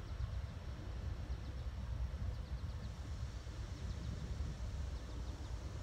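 Low, uneven rumble of a Union Pacific diesel locomotive approaching at a distance at the head of a loaded ballast train, with faint high bird chirps over it.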